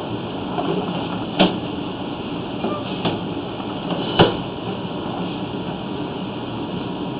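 Steady hiss with a few sharp knocks, the loudest about four seconds in, as a sewer inspection camera is drawn back through the sewer line on its push cable.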